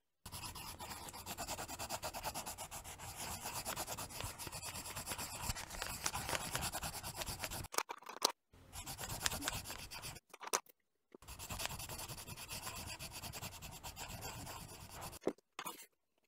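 Derwent Drawing coloured pencils scratching on paper in rapid, dense strokes as letters are drawn. The sound is faint and drops out to silence for a moment three times.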